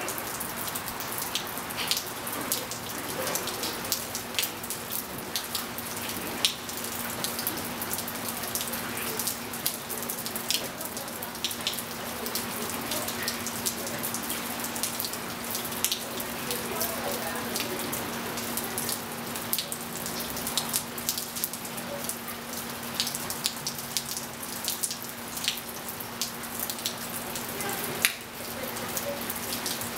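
Steady rain falling on a swimming pool and wet patio tiles, with frequent close drops and drips striking sharply over the hiss. A steady low hum runs underneath.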